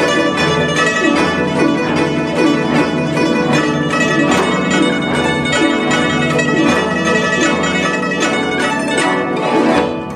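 Guzheng played solo: a fast, dense run of plucked notes, some of them bending in pitch.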